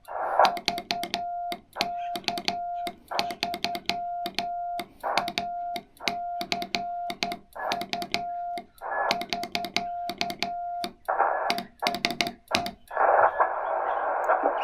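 Morse code being sent on a key: a steady mid-pitched sidetone beeping in dots and dashes, with a click at each key stroke and bursts of receiver hiss between characters, as with break-in keying. About thirteen seconds in the sending stops and the receiver's band noise hisses on while listening for the reply.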